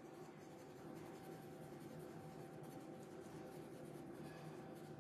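Faint scratching of a grey Carbothello pastel pencil on Pastelmat paper as the artist works shading strokes, over a faint steady hum.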